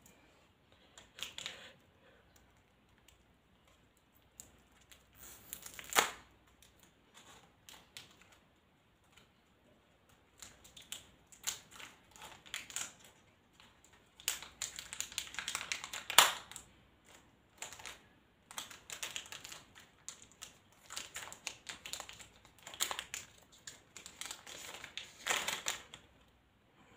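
Pokémon trading cards and their packaging being handled: irregular crinkling, rustling and clicks. Two sharper snaps stand out, about six seconds in and again about sixteen seconds in.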